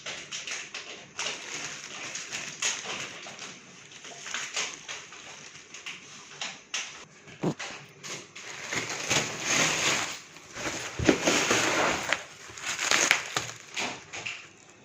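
Packaging being handled: irregular rustling and crinkling with scattered clicks and scrapes, loudest in a long bout of rustling past the middle.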